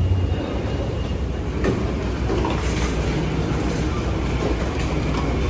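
Steady low rumble of a moving vehicle, with scattered light clicks and rattles over it.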